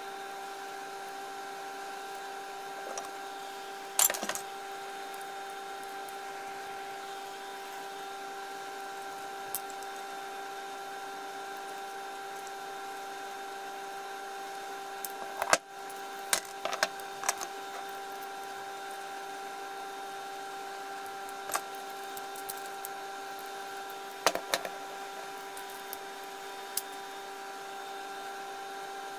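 Metal clicks and clanks of hand tools working a bearing puller and locking pliers on a planer's cutter drum shaft: one about four seconds in, a cluster around the middle, and a few more later. Under them runs a steady hum.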